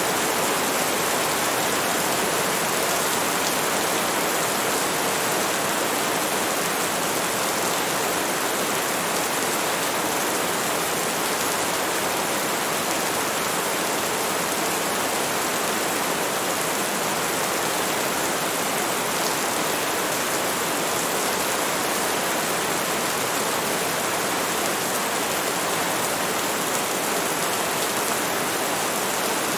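Steady, unbroken rain: an even hiss of heavy rainfall with no changes or individual drops standing out.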